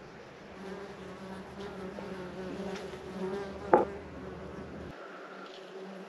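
A flying insect buzzing steadily, a low even hum, with one sharp click a little before four seconds in.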